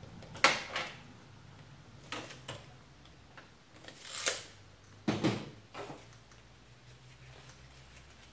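Handling noises as a tape measure is worked along a nylon strap on a table: a series of short, sharp clicks and scrapes. One comes about half a second in, and a cluster comes around four to six seconds, one of them a brief rasp that swells and then snaps off.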